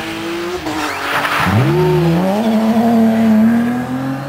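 Rally car engine coming off the throttle into a corner, its note falling, with a short scrub of tyre noise about a second in; then it accelerates hard out of the corner, the revs rising steeply and holding high as it passes.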